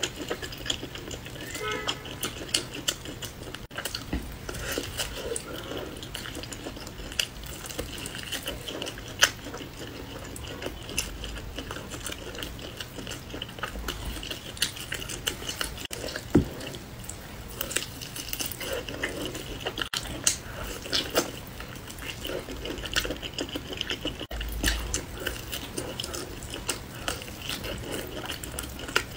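Close-up eating sounds: biting and chewing glazed roast meat off the bone, with wet mouth sounds and irregular small clicks and crackles as the meat is torn apart by hand.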